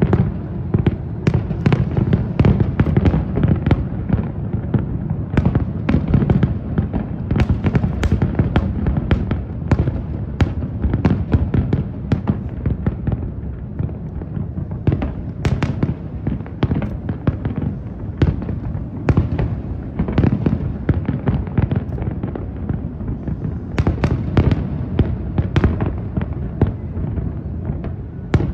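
Fireworks display: a rapid, irregular barrage of booming shell bursts and crackling over a constant low rumble of echoing detonations.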